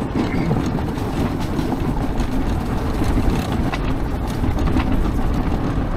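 Electric hub-motor ATV (a converted Honda quad) driving along a gravel track: a steady rumble of tyres over loose stones with the chassis rattling, and no engine sound.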